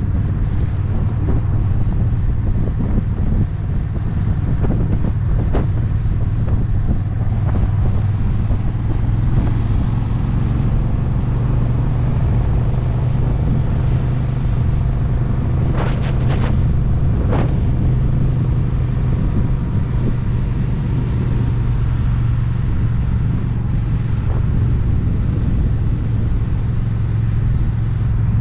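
Honda Rebel 1100 DCT's parallel-twin engine running steadily at cruising speed, mixed with wind rush and road noise as heard from a camera mounted on the motorcycle. Two short sharp sounds come about a second apart a little past halfway.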